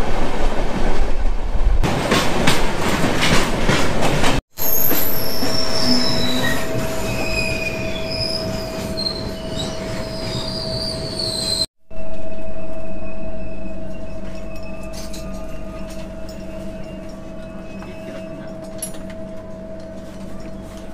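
Train running on the rails: a loud rattle and clatter at first, then high-pitched wheel squeals over a steady hum, then the hum alone, slowly fading. The sound breaks off briefly twice.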